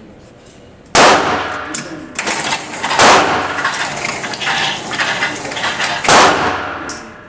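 Smith & Wesson SIGMA .40 caliber pistol firing three shots, about a second, three seconds and six seconds in, each ringing out with a long echo off the concrete walls of an indoor range.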